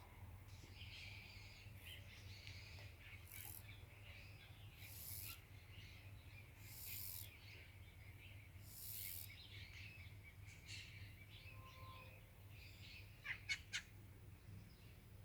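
Songbirds chirping and calling, faint and scattered, with three sharp, louder chirps in quick succession about 13 seconds in. Several short bursts of high hiss come and go over the first half, with a steady low hum underneath.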